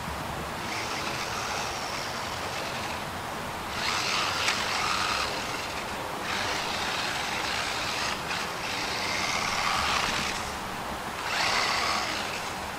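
DEERC 300e 1/18-scale RC monster truck's brushless motor and drivetrain whining in several throttle bursts of a few seconds each, with tyre noise.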